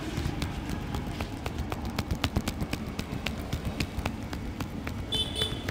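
Rapid, irregular slaps and taps of a barber's hands on the head during an Indian head massage, several a second, over a low background rumble. A brief high chirp sounds near the end.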